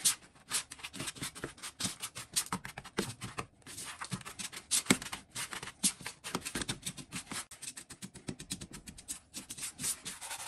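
Silicone spatula stirring brown sugar and cinnamon in a bowl: rapid, repeated gritty scraping strokes of the sugar against the bowl, with a couple of brief pauses.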